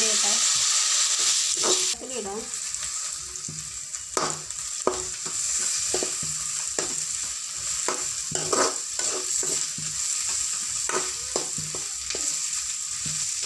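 Sliced onions frying in hot oil in an aluminium kadai, sizzling while a metal spatula stirs them, with repeated scrapes and clicks of the spatula against the pan. The sizzle is louder for the first two seconds, then drops abruptly.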